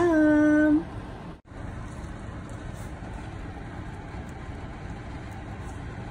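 Bark clams simmering in their broth in a pan on the stove: a steady, even hiss with a low rumble underneath.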